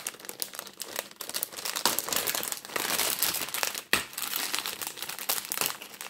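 Thin plastic packaging bag crinkling and crackling as it is opened by hand, a dense, irregular run of crinkles with a brief lull about four seconds in.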